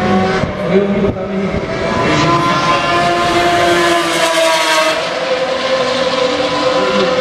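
Pagani supercar's V12 engine running at speed. Its note rises for a few seconds, drops about five seconds in, then holds steady.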